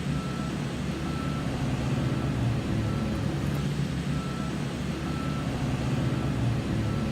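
Heavy vehicle engine running with a steady low rumble while its reversing alarm gives short repeated beeps.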